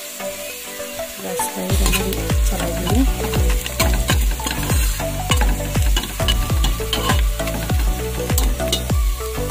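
Sliced onions and spice powder sizzling in hot oil in an aluminium pot while a spoon stirs them. Background music with a regular bass beat comes in a couple of seconds in and is the loudest sound from then on.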